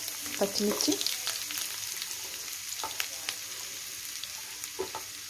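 Hot oil sizzling in a pan of frying chopped onions, green chillies and dried shrimp, a steady hiss with scattered crackling pops that eases off gradually.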